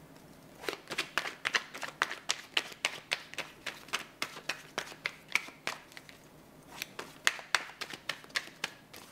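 A deck of tarot cards being shuffled overhand, the cards clicking against each other in quick, uneven strokes about four a second, with a short pause about two-thirds of the way through.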